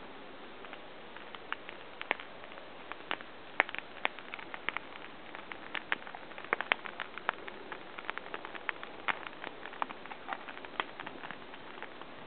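Wood campfire crackling: irregular sharp pops and snaps, several a second, over a steady low hiss.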